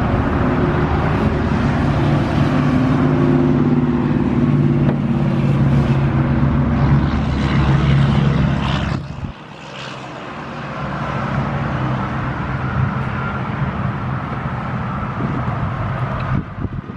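A motor vehicle engine running steadily with a low hum, which drops off sharply about nine seconds in, leaving a fainter steady outdoor rumble.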